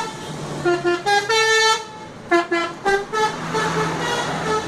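Telolet horn of an Indonesian tour bus, a multi-trumpet musical air horn, playing a tune. It gives short stepped toots, a held note about a second in, and a quick run of staccato notes near the middle.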